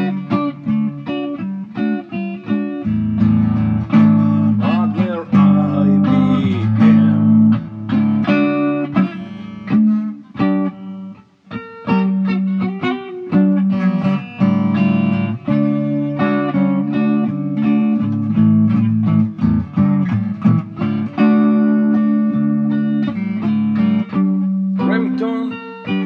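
Instrumental passage of a song, led by guitar over a steady bass line, with a short drop in loudness about eleven seconds in.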